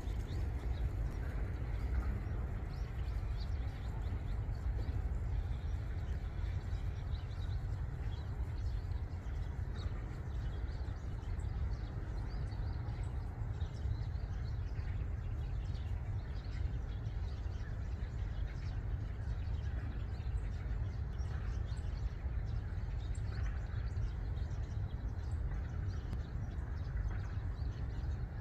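Eurasian tree sparrows chirping faintly now and then, short scattered calls over a steady low rumble.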